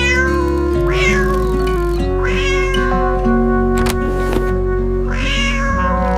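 A cat meowing four times, each meow sliding down in pitch, over gentle background music with long held notes.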